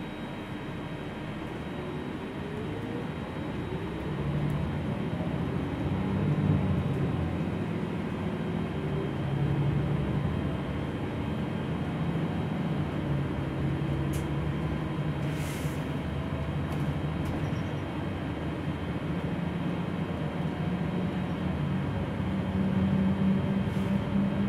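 Gillig low-floor city bus heard from inside the cabin while under way: the drivetrain whine rises in pitch as the bus speeds up over the first few seconds, then the engine runs on steadily.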